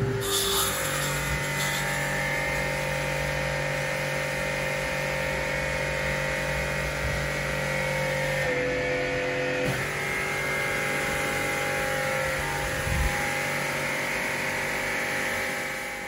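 Electric water pump of an air-conditioner washing kit running steadily with a constant hum, its pitch changing briefly about eight and a half seconds in. A single short knock comes near the end.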